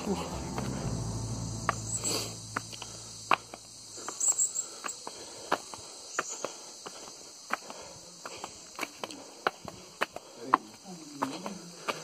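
Footsteps in chappals slapping on stone steps while climbing, a sharp step every half second to a second, over a steady high-pitched buzz of insects.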